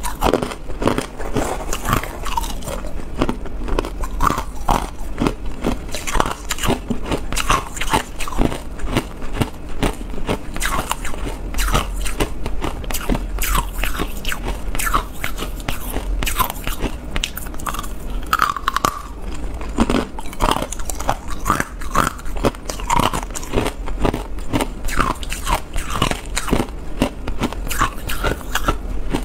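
Chunks of hard ice being bitten and chewed: a dense, irregular run of sharp crunches and cracks, several a second.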